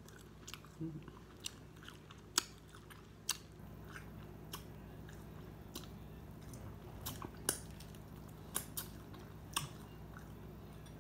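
Boiled crawfish being peeled and eaten: sharp shell cracks and clicks at irregular intervals, a second or so apart, with chewing between them.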